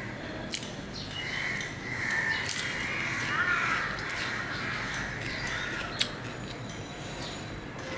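A bird calling for a few seconds, loudest around the middle, over a steady low hum, with a few sharp clicks.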